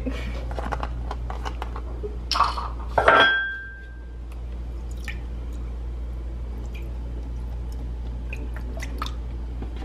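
Oat milk carton handled, with two sharp clacks about two and a half and three seconds in, the second with a brief ring. From about four seconds in, oat milk is poured from the carton into an electric milk frother's jug.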